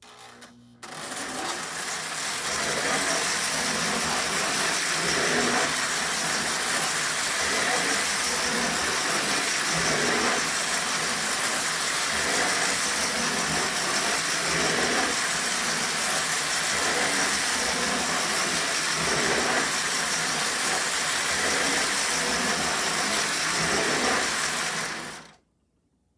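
Lionel 2065 4-6-4 toy steam locomotive running on an O27 tinplate track loop, a steady mechanical running noise of its motor and wheels. It starts about a second in and cuts off shortly before the end.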